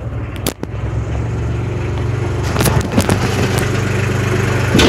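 Compact tractor's engine running steadily as it drives up close, growing a little louder, with a few clanks from the tractor and its rear implement about two and a half, three and five seconds in.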